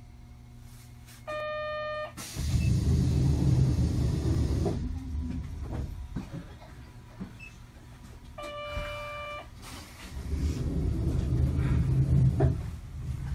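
Inside a Sapporo city streetcar: a steady electronic beep sounds twice, each under a second long and about seven seconds apart. Between the beeps come stretches of low rumble from the tram.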